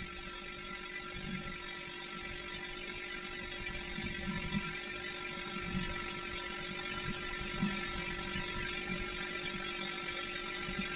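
Steady whirring hum made of several fixed tones over a hiss, slowly growing louder.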